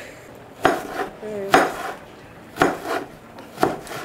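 A kitchen knife chopping green onions on a plastic cutting board: four sharp chops about a second apart.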